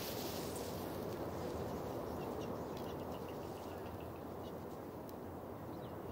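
Steady low outdoor background noise with a few faint, short, high chirps or ticks scattered through the middle.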